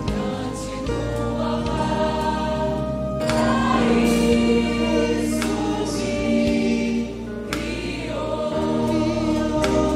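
Choir singing a gospel song with a live band and small orchestra of strings, horn, saxophone and keyboards, with a few percussion hits marking the beat.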